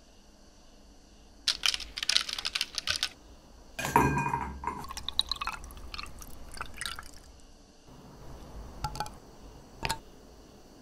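An orange half squeezed by hand, its juice crackling and dripping into a glass of ice. Then a clear liquid is poured from a bottle over ice, splashing and fizzing, and a few sharp clicks follow near the end.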